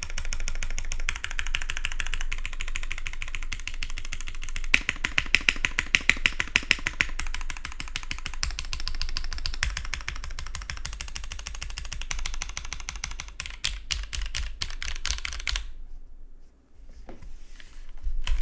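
Continuous typing on a custom mechanical keyboard with lubed, filmed vintage Cherry MX Black linear switches in an aluminium plate, under GMK keycaps. The keystrokes come dense and even, grow louder and faster for a couple of seconds about five seconds in, and stop about three-quarters of the way through.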